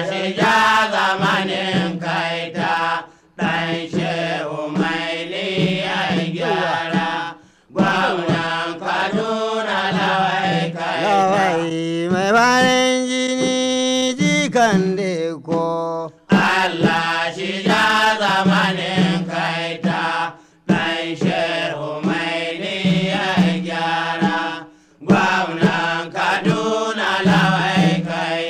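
Hausa praise singing: a man's voice chanting a melody in phrases broken by short pauses every few seconds, with one long held note about halfway through.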